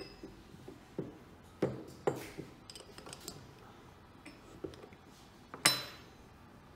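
Small steel open-end wrench clicking and clinking against the aluminium Honda CBX oil pump body and its relief-valve cap as the cap is snugged up hand tight: a run of light, separate metallic clicks. Near the end, one louder ringing clank as the wrench is set down on the bench.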